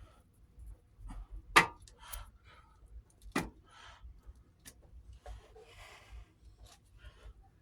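Scattered clicks and knocks of hand bodywork, two sharp knocks about one and a half and three and a half seconds in, then a brief scraping stretch.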